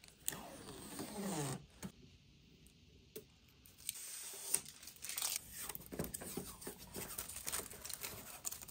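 Clear plastic protective film being peeled off the edge of a new TV screen, a faint tearing, crackling peel. About a second in it gives a short squeak that falls in pitch.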